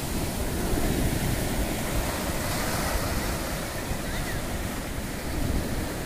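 Sea surf breaking and washing up the sand in shallow foam, a steady wash of water, with wind noise on the microphone.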